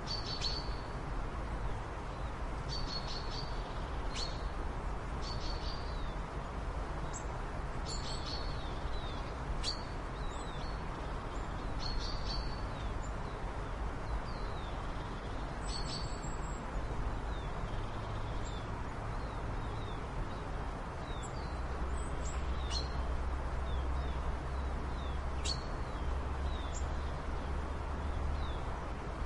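Birds chirping in short, scattered calls and brief sliding notes over a steady background hiss and low rumble.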